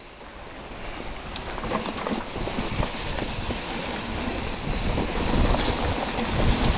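Wind rushing over the camera microphone on a mountain bike descending a muddy dirt trail, with the tyres on dirt and many small knocks and rattles from the bike over bumps. It grows steadily louder as the bike picks up speed.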